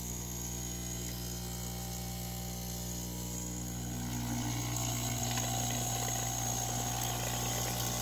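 The newly replaced vibration pump of a DeLonghi EC 155 espresso machine running with a steady buzzing hum as it draws water to fill the lines. It gets a little louder about halfway through, and water then runs into the cup, showing the new pump is working.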